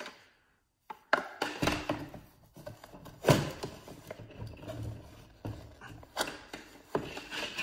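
Irregular knocks, clicks and rubbing as a plastic leaf-blower housing and hand tools are handled and set down on a tabletop.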